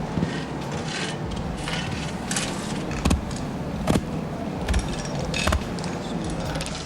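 Workshop clatter of scraping and rattling with about five sharp knocks, from heavy hammer parts being handled during reassembly of a tail hammer.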